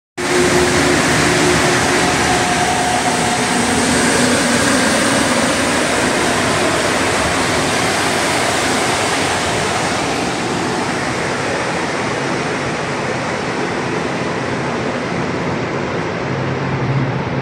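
Rubber-tyred Montreal metro train pulling out of the station and running off into the tunnel: a loud, steady rush with a few held motor tones in the first few seconds, slowly dying away.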